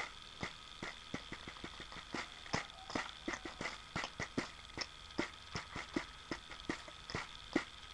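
Beatboxing: mouth-made clicks and pops in a quick, uneven rhythm, about three a second.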